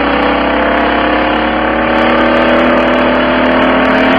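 Citroen ZX's 1.9 litre XUD9 diesel engine idling steadily, heard from inside the car's cabin.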